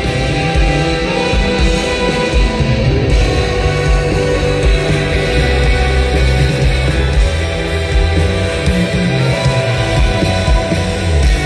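Live rock band playing an instrumental passage at full volume: distorted electric guitars and bass guitar over a driving low end, with a string section of violins and cellos on stage.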